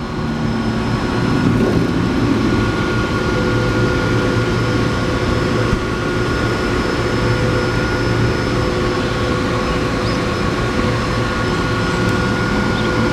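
Electric arc welding machine running idle: a steady whirr from its cooling fan with a constant hum, with no arc being struck.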